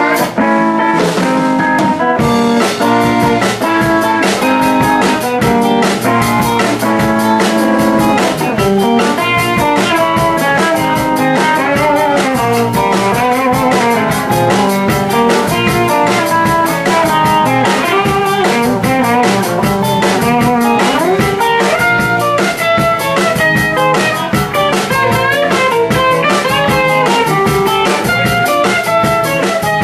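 Live band playing an instrumental: electric guitar lines over bass guitar and drum kit, with the drums coming in about two seconds in.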